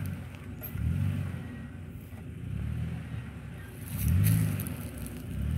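Toyota Tacoma pickup's engine revving in repeated surges, rising and falling several times as the truck crawls up a rutted off-road trail out of a gully. The surge about four seconds in is the loudest.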